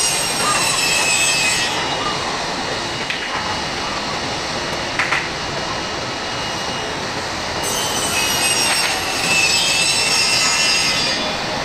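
Jet airliner engines: a steady roar with several high whining tones that slide downward. The whine fades about two seconds in and comes back strongly about eight seconds in, with a few sharp clicks in between.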